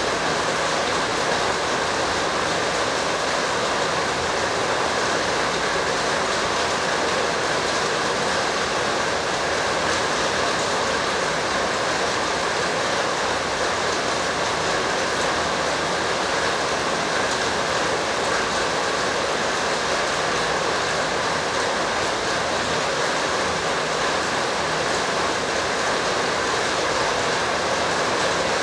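Loud, steady rushing noise that does not change, with no distinct events.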